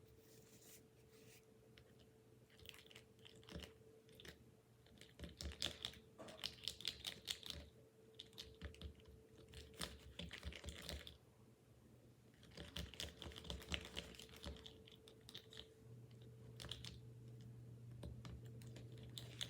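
Faint bursts of light, quick clicking and scraping from small plastic candy-kit pieces being handled, in three spells.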